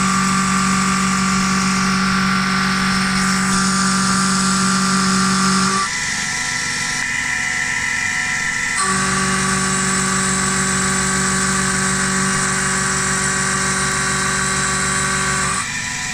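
Spindle of a homemade CNC milling machine running with a steady whine. It grows louder for two long stretches of about six seconds each, dropping back about six seconds in and again near the end.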